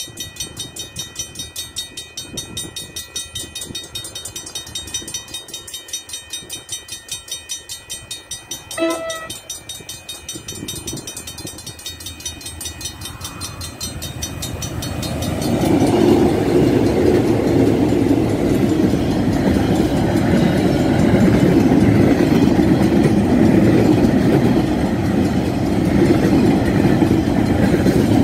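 Level crossing bell ringing steadily at about two to three strokes a second as a KiwiRail freight train approaches; the locomotive sounds one short horn blast about nine seconds in. From about fifteen seconds the locomotives and freight wagons rumble loudly past over the rails.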